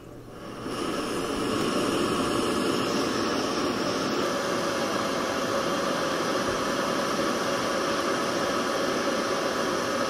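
Portable butane cassette stove burning under a black pot: a steady rushing hiss that builds over the first second and then holds, while the pot steams.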